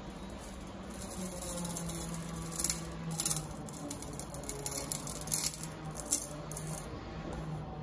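Metal plate clinking and rattling as it is clamped and bent by hand in a bench vise, with a cluster of sharp clicks and knocks in the middle, over a steady low hum.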